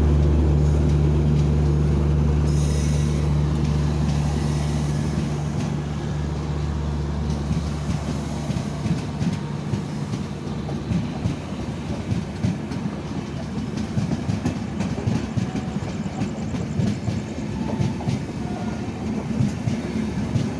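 Passenger train passing close by at speed. A steady low drone, most likely from the locomotive, fades over the first few seconds, and the coaches then roll past with a continuous clatter of wheels over rail joints.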